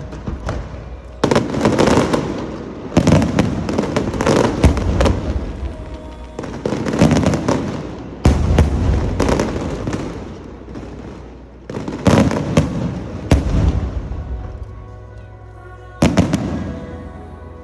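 Aerial fireworks shells bursting in volleys, each sharp bang trailing off into crackle, one volley every second or two, with a couple of short lulls between them.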